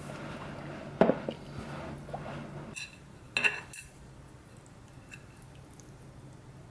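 A glass set down on a tabletop with a sharp knock about a second in, then a few light ringing clinks of chopsticks against a ceramic plate around three seconds in.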